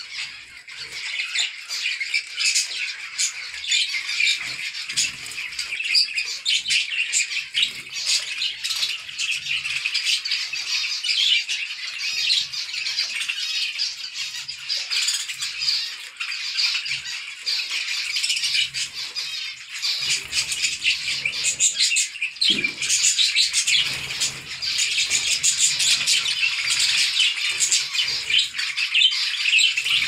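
A flock of zebra finches calling all together, a dense unbroken chatter of many short overlapping high calls.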